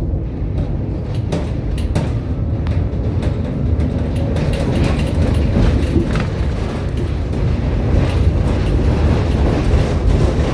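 Tram running along its rails: a steady low rumble with scattered clicks and knocks of the wheels over the track.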